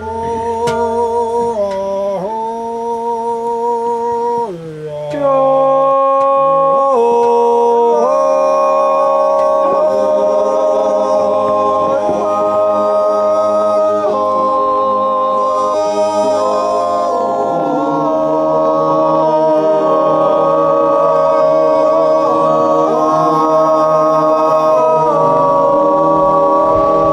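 Silvesterchläuse singing a Zäuerli, a slow wordless Appenzell natural yodel in several voices, holding wavering chords that shift from note to note. The singing swells fuller and louder about five seconds in as more voices join.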